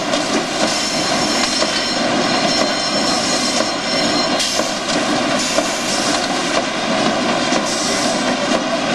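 Corrugated box-making machine with a RollvaC lead-edge vacuum feeder running, feeding corrugated board sheets: a steady, dense mechanical din with several constant whining tones.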